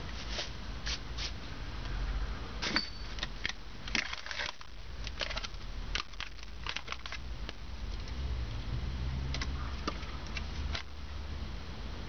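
Thin plastic bags and packaging crinkling and crackling as they are handled, in irregular sharp crackles that thin out near the end, over a steady low hum.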